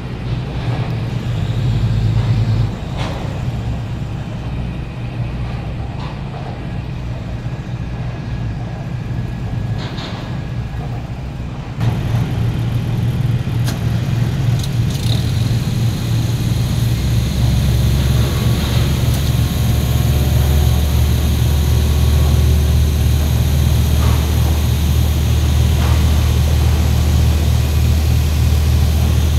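A low, steady engine rumble. It steps up in loudness a little before halfway through and grows heavier again past the middle.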